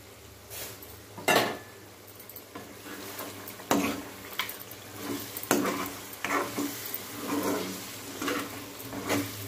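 A spoon stirring thick chicken masala in a kadai, scraping through it and knocking against the pan every second or so, with the masala sizzling as it cooks.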